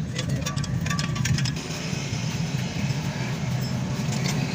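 A steady low mechanical hum, like an engine or motor running, with a few light metallic clicks and taps in the first second and a half.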